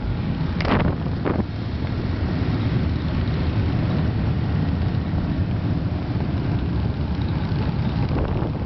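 Wind buffeting the microphone on a moving motorcycle, over the steady rumble of motorcycle engines. A couple of brief, sharper sounds come about a second in.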